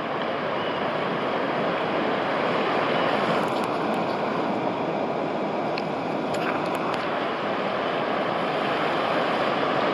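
Steady rushing and churning of fast tidal-race water at a spring flood tide, with a few faint clicks in the middle.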